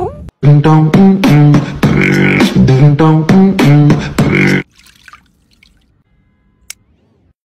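Rhythmic vocal music: a voice holding short pitched notes over a beat for about four seconds, then cutting off. Only faint small sounds follow, with a single click near the end.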